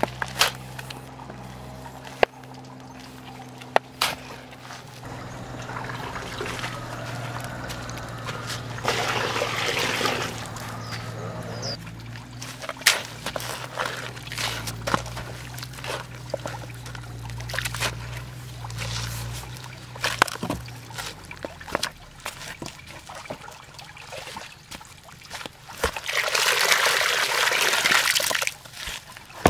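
A shovel scraping and chopping into a heap of dry sand-and-cement mix, then water poured into a crater hollowed in the heap, splashing loudly for a couple of seconds near the end as the mortar is being mixed by hand. A shorter pour is heard about nine seconds in.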